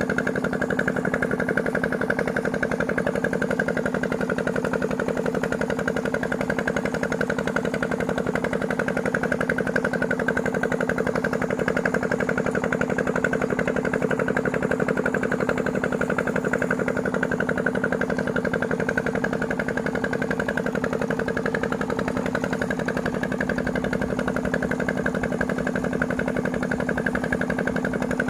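A motor running steadily, with several constant tones and a fast, even rattling pulse.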